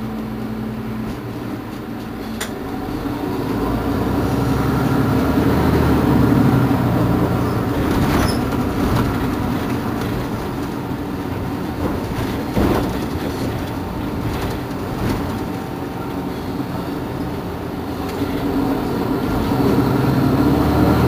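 Mercedes-Benz Citaro G C2 articulated bus's engine running while the bus stands at a stop: a steady low hum that swells a few seconds in and again near the end.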